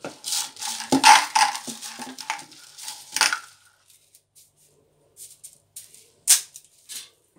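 Dry spaghetti being snapped in half by hand: a dense run of crackling and sharp snaps for the first three seconds or so, loudest about a second in and near the three-second mark, then a few scattered snaps later on, one sharp one near the end.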